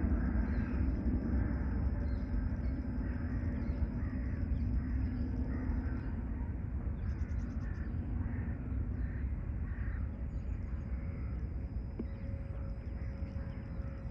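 Boeing 777-300ER's GE90 jet engines as a low rumble after the overflight, slowly dying away. Short repeated bird calls sound over it.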